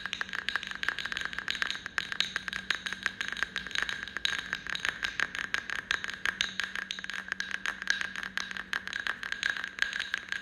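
Music soundtrack of fast, irregular clicking percussion, several clicks a second, over a steady high ringing tone and a faint low hum.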